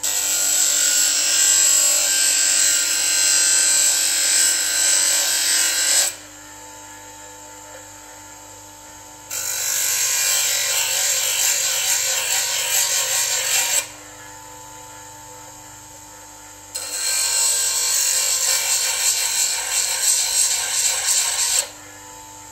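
Bench grinder running with a chisel held against the wheel three times, several seconds each, grinding loudly. Between passes only the motor's steady hum is heard.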